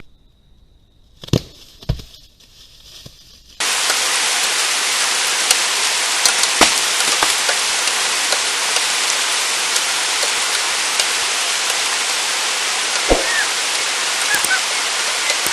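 A few faint clicks, then a loud, steady hiss like heavy rain or rushing water that starts abruptly about three and a half seconds in and runs on evenly with faint scattered ticks.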